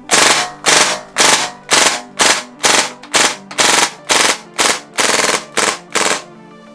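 Gas blowback airsoft gun firing about a dozen loud, sharp shots or short bursts at roughly two a second, stopping about six seconds in.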